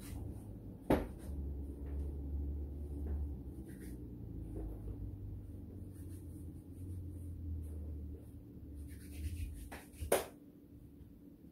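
A 1/4-inch stainless steel bolt being bent back and forth by hand: handling noise over a low rumble, with a sharp click about a second in and a louder one near the end.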